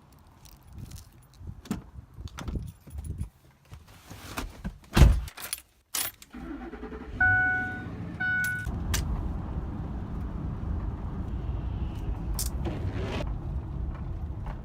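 Keys jangling with scattered clicks and a single loud thump about five seconds in. Two short electronic beeps follow, then a car engine starts and runs steadily with a low rumble.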